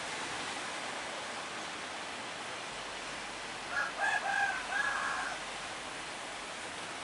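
Surf breaking steadily on the beach, with a rooster crowing once about four seconds in, a single cock-a-doodle-doo of about a second and a half.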